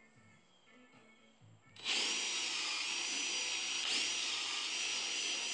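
Cordless drill boring into a walnut carving. It starts about two seconds in with a rising motor whine, eases off briefly about four seconds in, then speeds up again and runs on.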